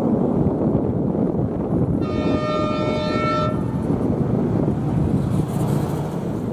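A rail vehicle's horn sounds once, about two seconds in, for roughly a second and a half, over a steady low rumble.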